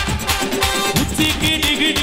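Live band music with a steady drum beat, including strokes on an electronic drum pad, under a melody line.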